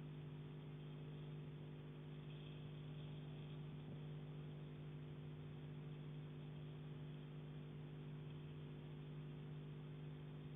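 A faint, steady electrical hum over low hiss, with no knocks.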